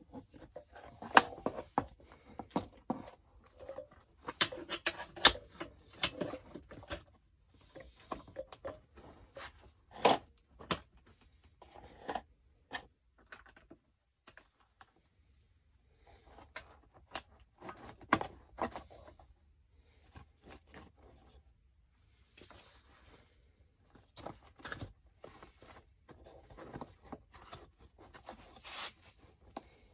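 Hand-work noises on a mower seat pan at a workbench: irregular clicks, taps and short scraping and rustling sounds as parts are handled, busiest in the first few seconds, with a quiet pause about halfway through.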